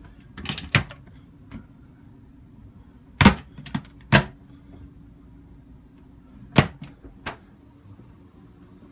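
Galley cabinet doors and drawers being opened and shut: about six sharp knocks and clicks, the loudest about three seconds in and again near six and a half seconds, over a faint steady hum.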